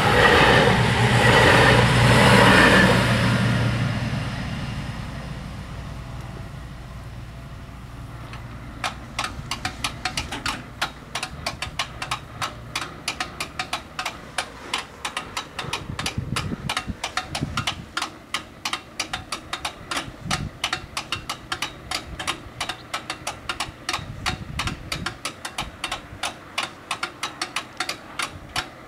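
A train passes over the level crossing and fades away in the first few seconds. About nine seconds in, the crossing's bells start ringing rapidly, several strikes a second, and keep going while the barriers rise after the train has passed.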